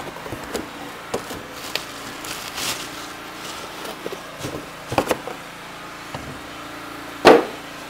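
Cardboard box and plastic packaging rustling and scraping as a power polisher and its cord are lifted out, with scattered light knocks; one sharp, loud knock near the end.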